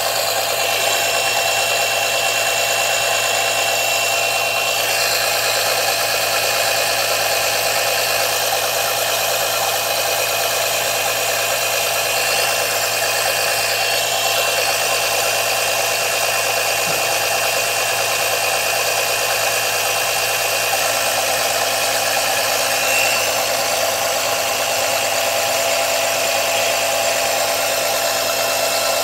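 Small electric oil suction pump running steadily with a constant whine, drawing mostly air instead of oil because its leaking hoses can't hold a vacuum.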